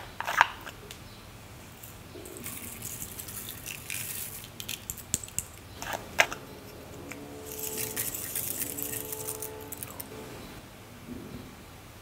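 Small plastic containers being handled and opened, with a few sharp clicks and scratchy rattling in between.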